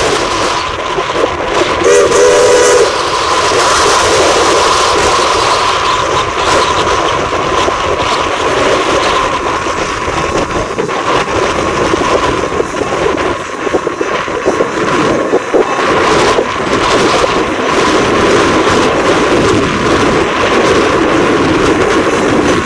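Norfolk & Western No. 475, a 4-8-0 steam locomotive, sounds a short whistle blast about two seconds in. The locomotive and its coaches then keep running past, with a steady noise of the working engine and wheels on the rails.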